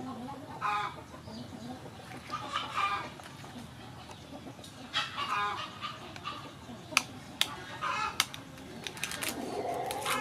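Chickens clucking in a handful of short calls. In the second half come several sharp clicks of a knife cutting through eggshell.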